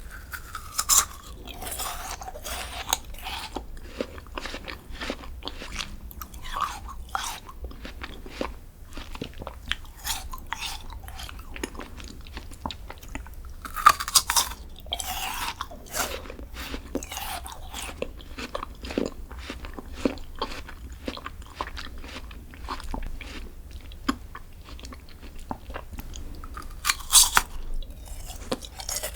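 A person biting into and chewing crunchy dessert close to the microphone. Three loud crunching bites come about a second in, midway and near the end, with steady crackling chewing between them.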